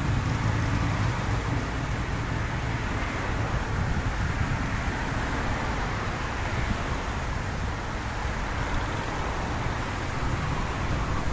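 Steady road traffic on a wet multi-lane road: engines rumbling with tyres hissing on the wet pavement as cars pass.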